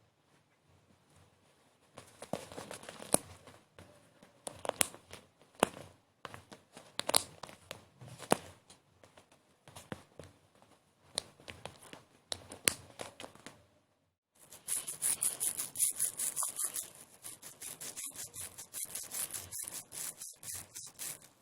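Scattered sharp clicks and crackles of something being handled, turning about two-thirds of the way in into a dense crinkling, tearing-like rustle.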